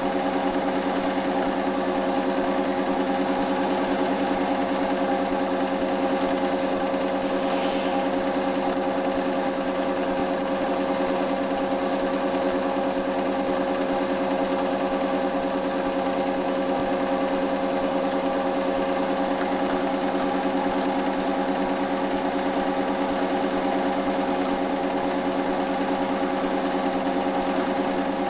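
8mm film projector running steadily: an even mechanical whirr with a steady hum and a fine, rapid flutter from the film being pulled through the gate.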